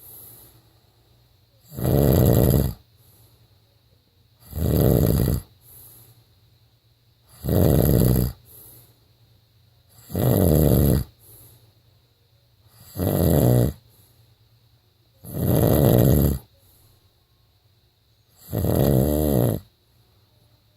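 A man snoring in his sleep: seven loud snores, each about a second long, coming evenly about every three seconds.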